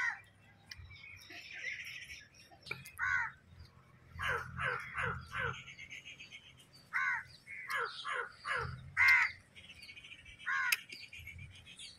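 Birds calling outdoors: short calls come in quick clusters of two to four, repeating through the stretch.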